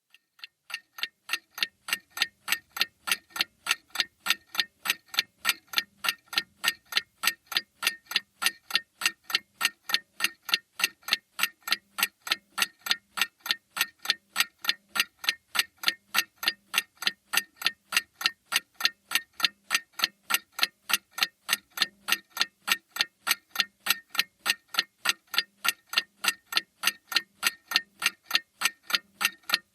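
Mantel clock ticking with a steady, even beat of sharp clicks, a few a second, fading in over the first second.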